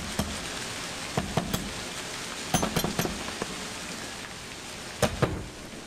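Stage rain sound effect, a steady hiss, with scattered sharp knocks and taps: a quick cluster of them about two and a half seconds in and two more near the end.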